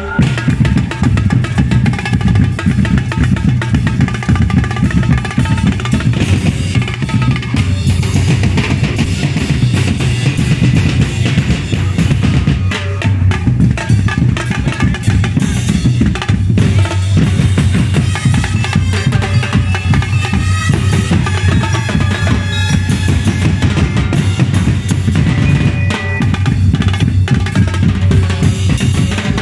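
Fast, driving percussion music of bass drums and snare drums, played in dense rapid rolls and beats for street dancing.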